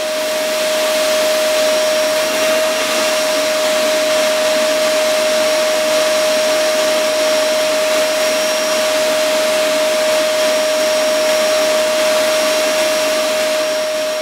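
Vacuum cleaner running steadily, its hose nozzle being drawn over a cat's fur: a rush of suction air with a steady whine over it.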